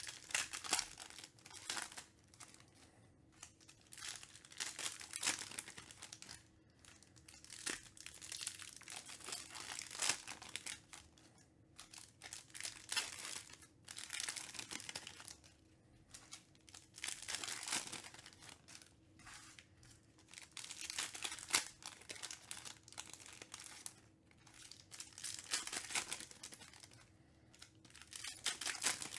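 Foil trading-card pack wrappers crinkling and tearing as packs are opened, with cards being handled and slid through the hands, in short crackly bursts every second or two.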